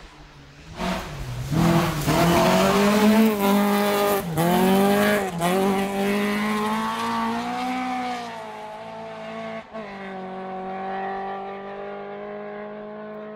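Rally car engine revving hard as it passes on a gravel stage, the revs dropping sharply and climbing back about three times. Later it settles into a steadier, quieter engine note.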